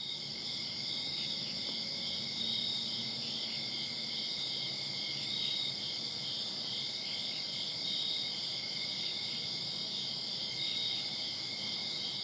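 Night insect chorus: crickets and other insects trilling steadily, with a louder call returning every two or three seconds.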